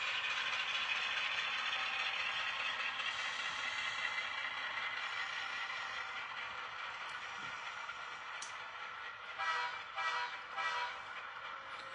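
HO-scale model train running along the track as it pushes freight cars back, a steady running noise that slowly fades. Three short, louder clattering sounds come near the end.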